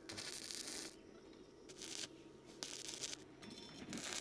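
Electric arc welding of an iron strip onto a square steel pipe frame: a crackling hiss that comes in several short runs with breaks between, the longest near the start and near the end.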